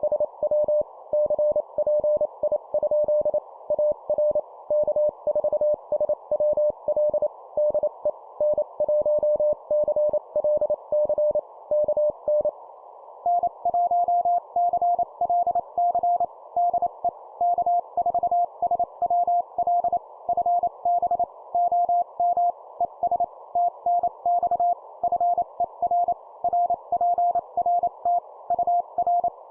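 Morse code (CW) sent at 25 words per minute as a keyed audio tone over steady hiss. One station's tone stops about twelve seconds in, and after a short pause the other station answers at a slightly higher pitch.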